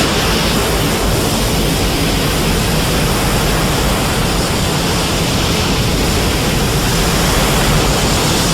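Sci-fi 'spiral ray' energy-beam sound effect: a loud, steady rushing noise with a deep rumble underneath, held without a break.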